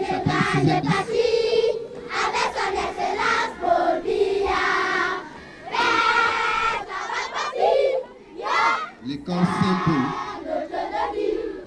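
A group of schoolchildren singing a patriotic song together as they march, their voices dropping out briefly twice.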